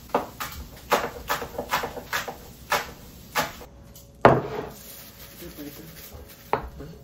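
Kitchen utensils knocking and tapping: a quick run of sharp taps in the first two seconds, a few more spaced apart, and one louder knock a little past four seconds in.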